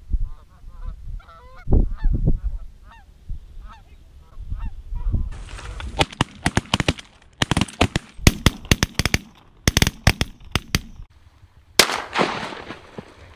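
A flock of Canada geese honking overhead over a low wind rumble, then, about six seconds in, a rapid volley of shotgun shots from several guns that runs for about five seconds. Near the end comes one more loud shot followed by a rush of noise.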